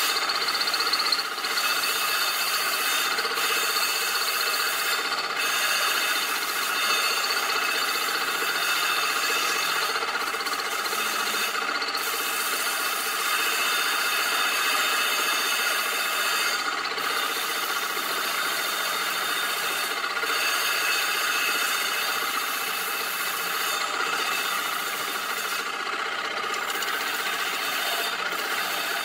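Coarse sandpaper rasping against the edge of a crash cymbal spinning on a lathe, smoothing its rough grinder-cut edge; steady ringing tones run through the sanding noise.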